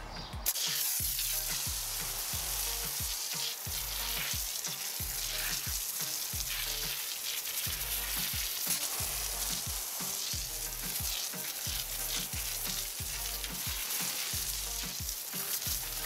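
Hand-pump foam sprayer hissing steadily as it sprays thick foam onto a wheel and tyre. The spray starts about half a second in and runs without a break, over background music with a steady low beat.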